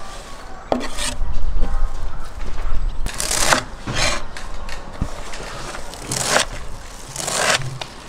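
Chef's knife chopping and scraping fresh dill on a wooden cutting board: rough scraping swishes of the blade across the wood, roughly one a second.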